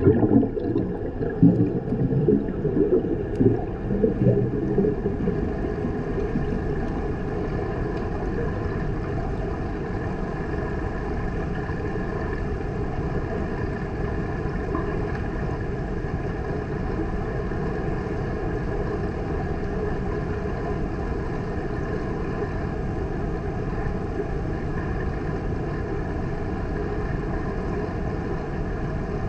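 Underwater ambience in a swimming pool heard by a submerged GoPro: a steady low rumble with a faint steady hum over it. Irregular bubbling and gurgling near the camera during the first few seconds.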